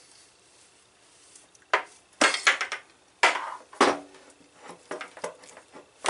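Steel hand crimper for battery cable lugs being worked, giving a run of sharp, irregular metal clicks and clanks, some with a short ring, starting a couple of seconds in.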